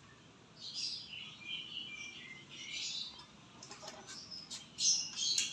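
Small birds chirping and twittering, followed by several sharp clicks near the end.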